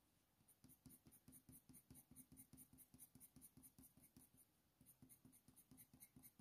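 Faint scratching of a Faber-Castell Polychromos coloured pencil on hot-press watercolour paper, flicked in quick short strokes, about five a second, to lay in fur, with a brief pause a little past the middle.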